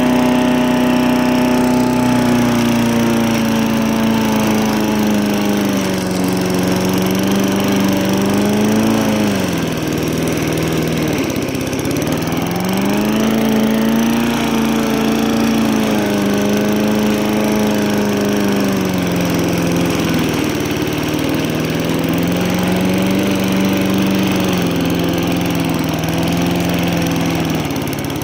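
Walk-behind push mower's small gasoline engine running under load as it cuts grass, its speed repeatedly sagging and picking back up, with the deepest drop about ten seconds in. The engine is losing power, which the owner takes for something wrong with the mower.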